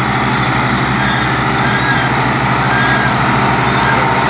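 Tractor diesel engines working hard under heavy load as a Ford tractor tows a Fiat 480 hauling a loaded sugarcane trolley. A loud, steady engine note with an even low pulsing beat, getting a little louder as the Ford comes nearer.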